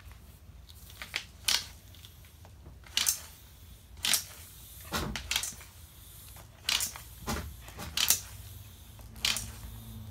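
Small hand-held basketball air pump being worked in quick strokes into a flat bicycle tyre, each stroke a short puff of air, about one a second.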